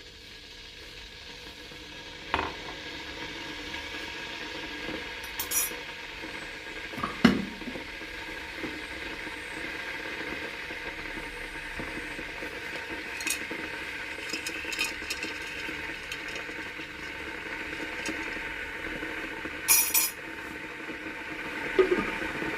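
Kitchen work: utensils and dishes clinking now and then over a steady hiss that slowly grows louder, with the loudest clink about seven seconds in.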